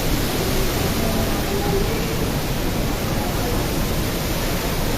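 Strong wind and heavy rain: a loud, steady rush of noise.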